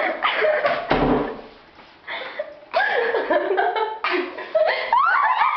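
Indistinct voices with laughter and chuckling, and a low thump about a second in.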